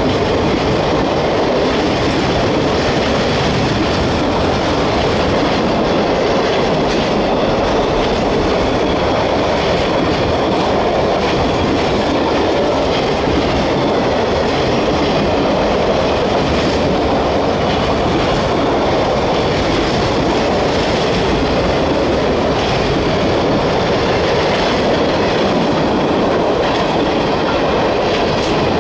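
A long freight train of mixed manifest cars rolling past at track speed: a steady, loud rolling noise of steel wheels on rail with faint repeated clicking of wheels over rail joints.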